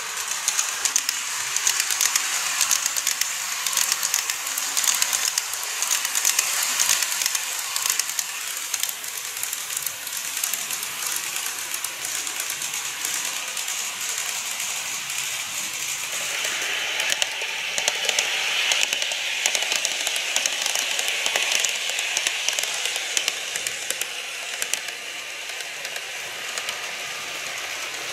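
N-gauge model train running on the layout track: a rapid, dense clicking of the wheels over the rail joints over a steady rolling hiss, with a higher hum joining in about halfway through.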